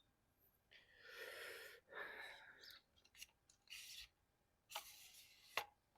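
Faint rustling, several soft noisy swishes, and two sharp clicks, in otherwise near silence.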